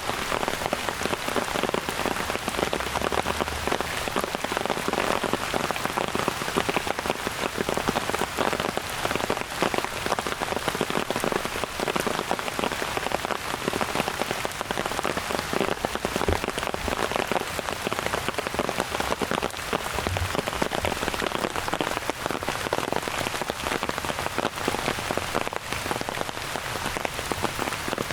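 Steady rain falling, a dense even hiss of countless drops striking surfaces.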